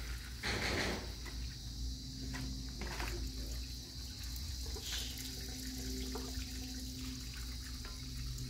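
Cooked chard and its water tipped from a plate into a plastic colander over a concrete sink, draining it: a short splash of water about half a second in, then a few light knocks and handling noises.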